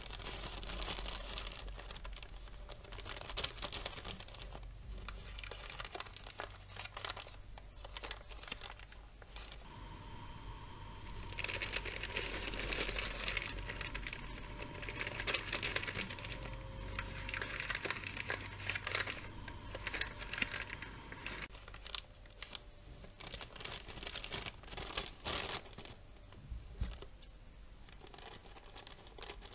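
Clear plastic wrapper of an airline cutlery pack crinkling steadily as hands handle, flatten and pull at it. Near the end scissors cut into the plastic.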